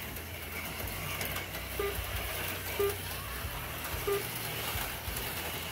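HO-scale slot cars running on a plastic track, a steady low hum from their small electric motors, with three short beeps about a second apart.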